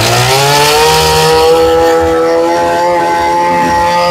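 Stihl FS23 brushcutter's small two-stroke engine revved from idle to full throttle. The pitch rises over about the first second, then holds steady at high revs.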